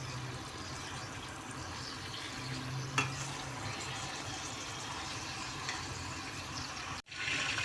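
Chicken pieces frying in oil and butter in a pot, a steady sizzle, with a single click about three seconds in.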